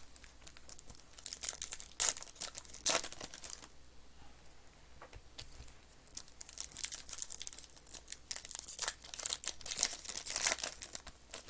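Foil trading card pack wrappers crinkling and tearing as packs are ripped open, a run of sharp crackles: a few loud ones about two and three seconds in, then a busier stretch through the second half.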